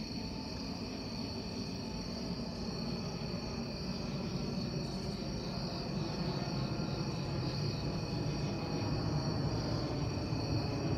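A jet airliner's low rumble, growing slowly louder as it flies over in the dark, over steady, pulsing chirping of night insects.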